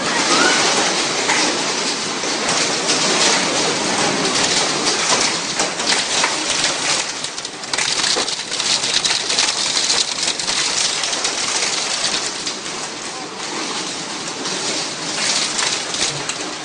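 Hail and rain driven by microburst winds, pelting down hard as a dense hiss full of sharp impacts. It eases somewhat in the second half.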